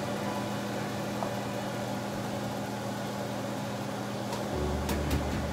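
Steady mechanical hum with an even hiss, with a few sharp clicks near the end.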